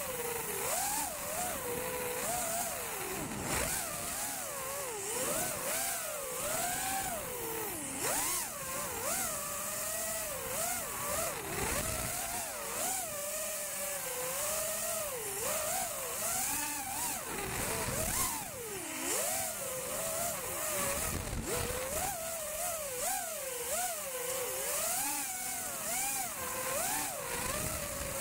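Eachine Wizard X220 racing quadcopter's brushless motors and 5-inch props whining, the pitch swinging up and down constantly with throttle as it flies acro through racing gates. Heard up close from the quad itself, with a gusty hiss of rushing air.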